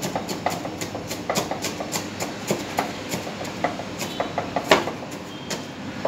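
Chef's knife chopping onion on a plastic cutting board: quick knocks of the blade on the board, about four to five a second, with one harder knock about three-quarters of the way through, over steady background noise.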